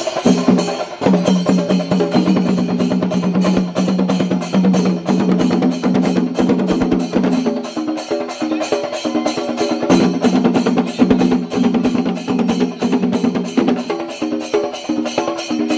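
Festival percussion ensemble playing fast, even drum strokes with sharp, clacking hits, over a sustained melody that moves in steps.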